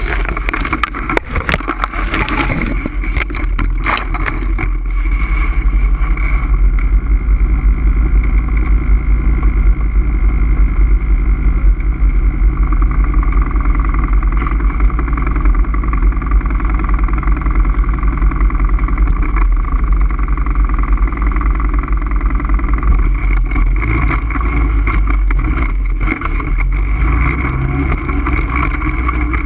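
ATV engine running steadily under way, with a strong low rumble. Knocks and rattles come thick in the first few seconds.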